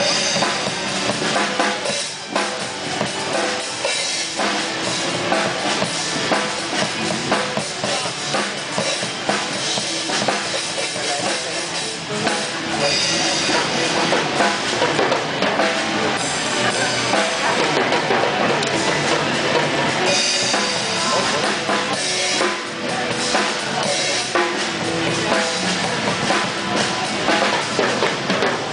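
A child plays an acoustic Dixon Black Widow drum kit, with bass drum, snare and cymbals in a continuous beat that has no breaks.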